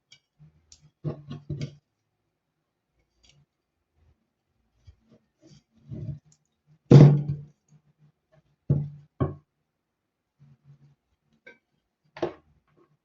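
Scattered knocks and clicks of parts and tools being handled on a workbench during a blender repair: a cluster about a second in, a louder knock about seven seconds in, two more near nine seconds, and one near the end.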